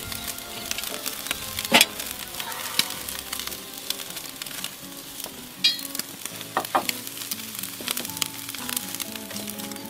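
Rib-eye steaks sizzling on a charcoal grill grate: a steady crackle with sharp spitting pops of fat, the loudest a little under two seconds in and again around six and seven seconds. Soft background music plays underneath.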